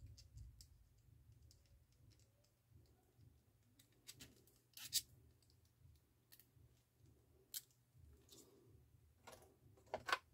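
Scattered small clicks and light rattles of the Marantz 6200 turntable's motor assembly and its metal and plastic parts being handled and fitted back together by hand. The sharpest clicks come about five seconds in and in a quick cluster near the end.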